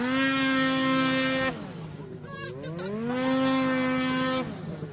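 Snowmobile engine revving under two bursts of throttle: the pitch climbs and holds high for about a second and a half, drops off, then climbs and holds again before letting off near the end.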